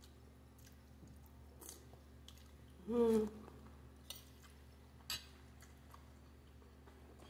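A person eating pasta with a metal spoon: quiet chewing with a few soft clicks, and one short hummed 'mmm' about three seconds in, the loudest sound.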